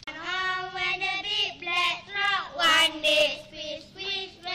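A small group of young girls singing together, holding sustained notes.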